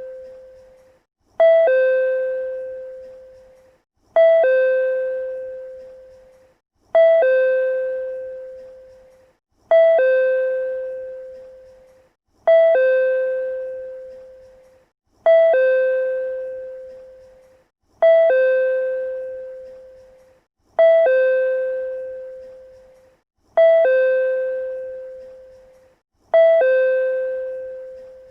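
PRC-type chime sounding its two-note ding-dong, a short higher note then a lower one that rings on and fades, repeated on a loop about every three seconds.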